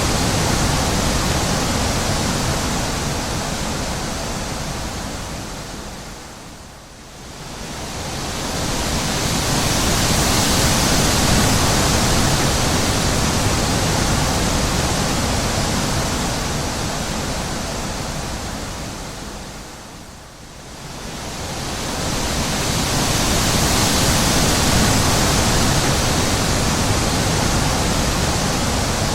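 Wind blowing in long gusts: a full rushing noise that dies away almost completely about seven seconds in and again about twenty seconds in, each time swelling back up over a few seconds.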